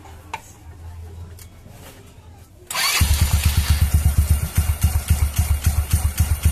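A few faint clicks, then about two and a half seconds in a GY6 scooter's single-cylinder four-stroke engine starts abruptly and settles into a steady, fast chugging idle. The belt-drive cover is off, so the front pulley and belt spin in the open.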